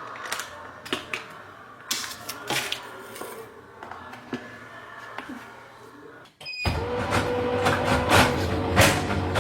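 Small-room household sounds with scattered light knocks and clicks. About six and a half seconds in, these cut off and louder background music starts.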